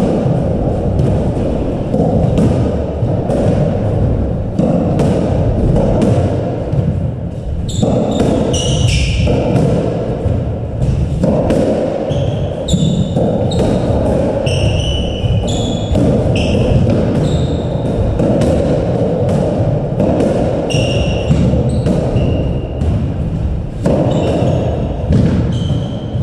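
Squash rally: a run of sharp racket strikes and ball impacts off the court walls, with short high squeaks of court shoes on the wooden floor, mostly in the second half, over a steady low rumble.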